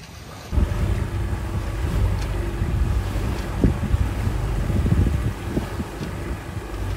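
Wind buffeting the microphone on a small sailboat under way, with water noise, a faint steady hum underneath and a few knocks. It becomes much louder about half a second in.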